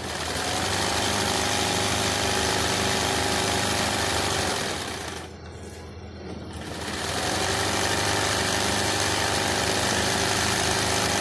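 Industrial sewing machine stitching free-hand embroidery at speed: a fast, even needle clatter over a steady motor whine. It runs in two long spells, easing off for about a second and a half about five seconds in, then starting up again.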